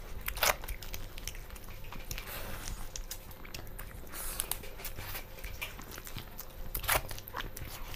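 People eating rice and chicken curry with their hands: chewing and biting, with scattered clicks of fingers and food against steel plates. Two sharper clicks stand out, about half a second in and near the end, over a steady low hum.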